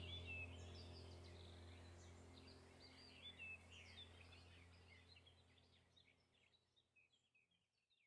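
Faint birds chirping over a low steady hum, the whole track fading out to silence near the end.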